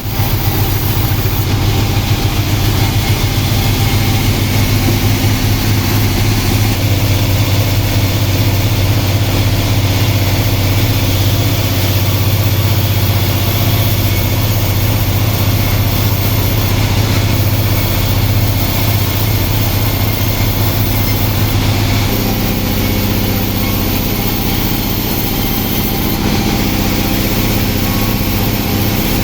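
Sawmill saw running steadily while sawing bayur wood, a loud machine sound with steady tones. About 22 seconds in, its pitch shifts and the lowest part drops away.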